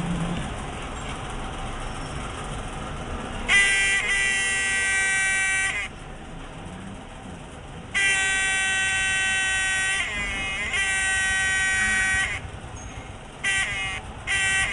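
Alarm buzzer of a homemade proximity-sensor security alarm, sounding a steady buzzing tone each time the sensor is triggered. It starts about three and a half seconds in and switches on and off in bursts of about two seconds, then in a few short quick bursts near the end.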